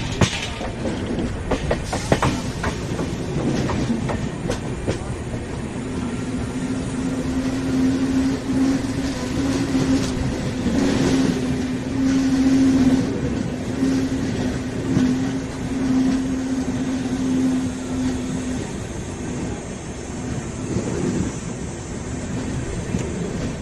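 Passenger train running on the rails, wheels clattering over the rail joints under a steady rumble. A steady low hum comes in about six seconds in and stops about eighteen seconds in.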